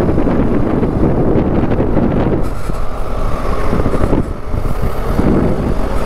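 Motorcycle engine running while riding, mixed with wind rushing over the microphone; the sound dips briefly about four seconds in.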